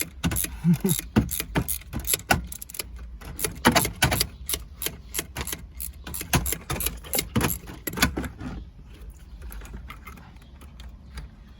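Quick metallic clicks and clinks of hand tools on bolts: a ratchet and socket working out the shifter bolts. The clicks are dense for about eight seconds, then thin out and fade.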